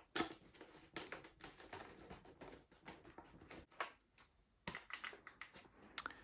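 A small screw being driven with a screwdriver into a foam RC plane part: a string of faint, irregular clicks and scrapes, with a brief pause a little past four seconds in.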